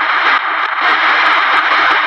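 Radio static: a steady, loud hiss with scattered crackles and a brief dip about half a second in.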